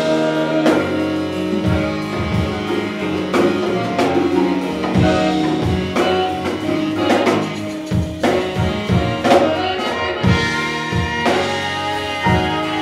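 Jazz band playing Latin jazz with a Balkan flavour: a saxophone line over drum kit, percussion and bass, with regular drum hits under held notes.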